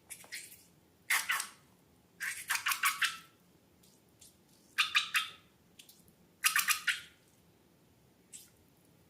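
Slime being squeezed and squished by hand, in about five separate wet, crackly bursts of small popping air bubbles, the longest a little over two seconds in, with a faint one near the end.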